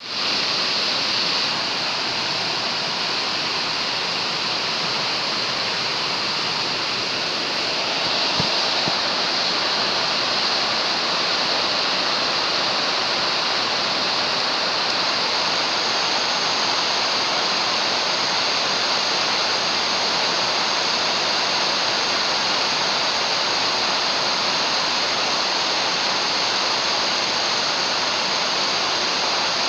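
Hair dryer blowing steadily, a constant rushing noise. About eight seconds in there is a faint click and it gets slightly louder.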